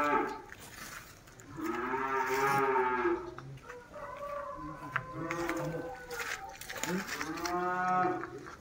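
A bull mooing repeatedly: a call tails off at the start, a long loud moo comes about two seconds in, softer short calls follow in the middle, and another long moo comes near the end.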